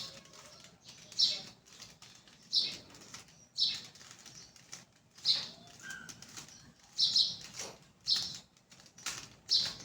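Plastic Rubik's cube being turned, short clicking swishes of its faces twisting about once a second, some eight turns in all.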